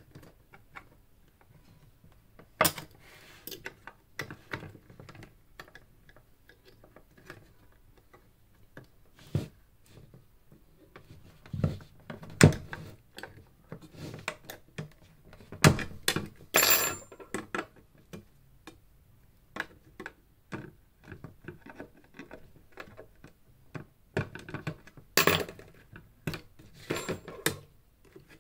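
Scattered clicks, knocks and metallic clinks of hand tools and small metal parts being handled while a studio monitor is disassembled, with a short ringing metallic jingle about seventeen seconds in and again about twenty-five seconds in.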